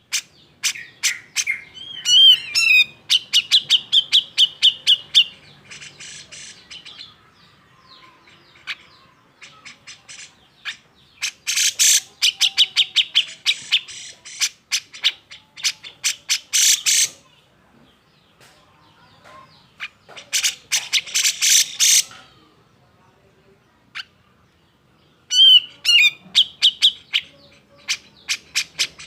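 Grey-cheeked bulbul (cucak jenggot) calling agitatedly in loud bursts of rapid harsh chatter mixed with a few swooping whistled notes, four bouts separated by short pauses.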